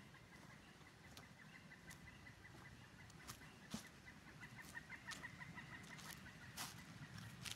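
Faint footsteps, a few scattered soft thuds, with a faint run of quick repeated animal calls in the background.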